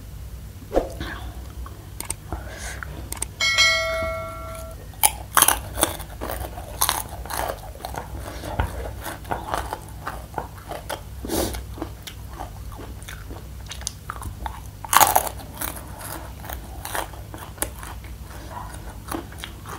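Close-up chewing and crunching of crispy fried macaroni snack, with sharp crackles as the pieces are bitten and chewed. A short bell-like ringing tone sounds about four seconds in.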